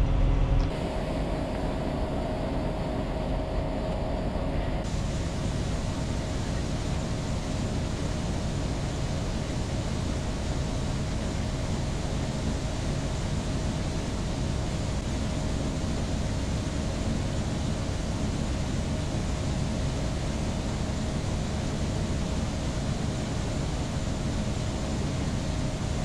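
Steady drone of farm machinery running, with a constant whining hum.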